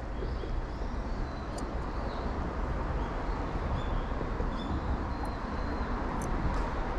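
Steady outdoor background noise under a concrete road bridge, with a few faint high chirps and light clicks.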